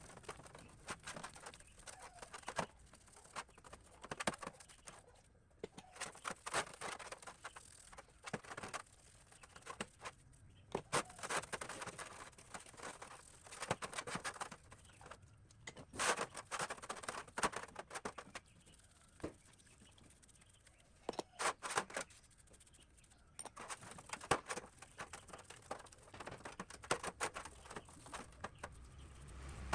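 Hand work on metal parts: irregular bursts of scraping and rubbing with sharp clicks and taps, broken by short pauses.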